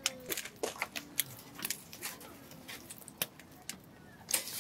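Wood campfire crackling: scattered sharp snaps and pops at irregular intervals.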